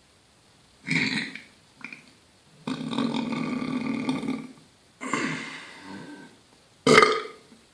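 A person belching over and over, about five burps. There is a short one, a small one, a long drawn-out burp of nearly two seconds, one that trails off, and a short loud one near the end.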